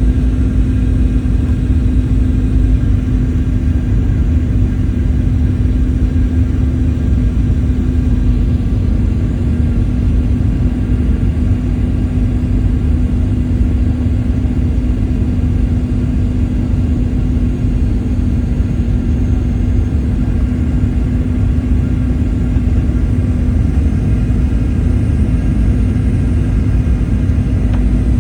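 Jet airliner during landing: a steady low rumble of engines and rushing air with a constant hum, even in level throughout.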